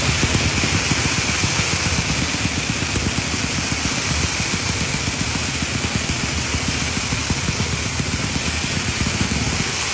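Firecrackers going off in a dense, unbroken crackle of rapid pops over a steady hiss, easing slightly and then cutting off suddenly at the end.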